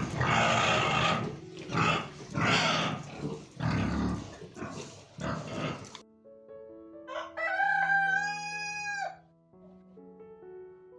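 A rooster crows once about seven seconds in, one long call of nearly two seconds. It comes after a run of about six harsh, noisy bursts from an unidentified animal. Background music plays underneath.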